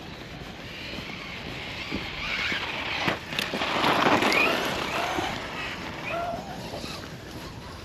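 Brushless electric RC truck driving on dirt: the motor's whine glides up and down as it is throttled. It swells to its loudest about four seconds in and fades after, with a sharp knock about three seconds in.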